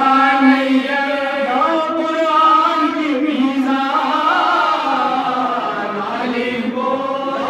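Men's voices chanting a Muharram mourning recitation in unison into a microphone, holding long, slowly bending notes.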